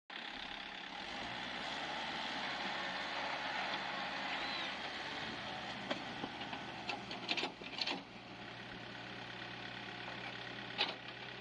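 Kubota L4508 tractor's diesel engine running under load as it tries to haul a loaded trolley out of deep mud. Its note shifts about five seconds in, and a few sharp knocks come in the second half.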